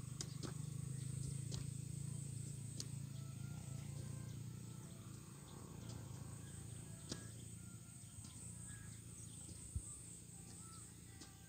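Open-air field ambience: a steady high-pitched insect drone with scattered short bird chirps over a low rumble. A few faint knocks are heard, one about ten seconds in.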